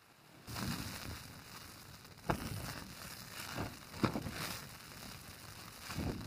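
Rough rustling and crackling noise that starts suddenly about half a second in and comes in uneven swells, with a sharp knock about two seconds in and another about four seconds in.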